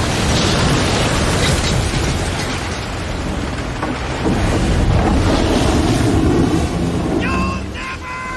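Storm wind, rain and crashing waves battering a small shrimp boat at sea: a loud, dense rush with a deep rumble underneath. A few steady high tones come in near the end.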